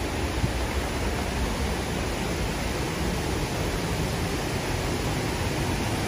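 Steady rushing of a waterfall on the Akerselva river: an even, unbroken wash of falling water.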